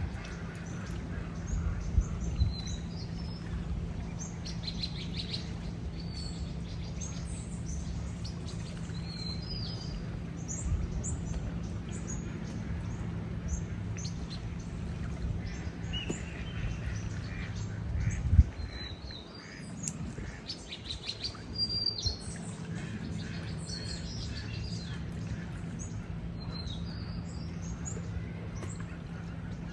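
Small birds chirping in short, high calls over and over, above a steady low rumble, with a single low thump about two-thirds of the way through.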